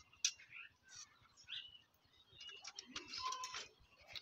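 Faint scattered clicks and light rattles from wires and a circuit board being handled, with a few short high chirps.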